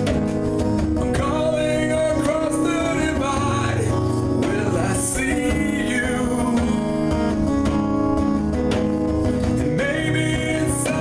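A live rock band plays a slow song with strummed acoustic guitar, and a voice sings over it.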